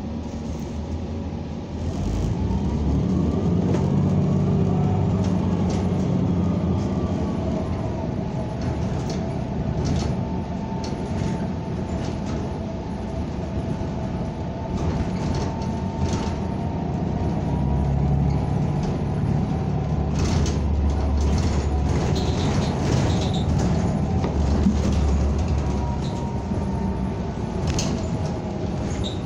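NABI 45C-LFW city bus heard from inside the cabin, pulling away about two seconds in. An engine and drivetrain whine rises in pitch, then the bus runs on steadily with low road rumble and scattered interior rattles and knocks.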